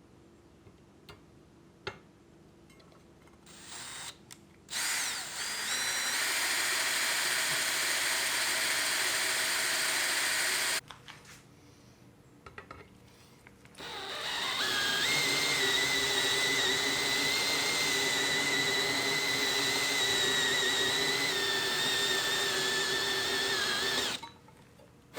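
Handheld electric power tool running in two long runs, each spinning up with a rising whine and then holding a steady high pitch.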